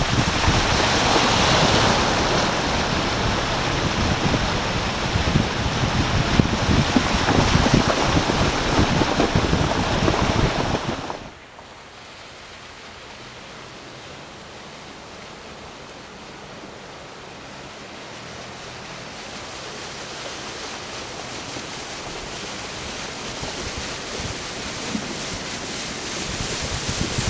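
Wind buffeting the microphone over engine and tyre noise from a vehicle driving along a dirt trail. About eleven seconds in this cuts off to a much quieter, steady sound that slowly grows louder as an off-road vehicle approaches a flooded stretch of trail.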